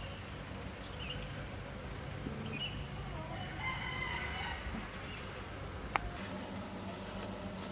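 A drawn-out bird call, much like a rooster crowing, about three to five seconds in, over a steady high-pitched whine. A single sharp click sounds about six seconds in.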